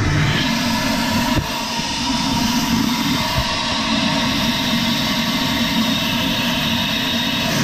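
Wet/dry shop vacuum running steadily, its corrugated hose held to openings in a boat's fibreglass anchor locker, drawing air and water out of the gap. There is a steady motor whine over rushing air, with one light knock about a second and a half in.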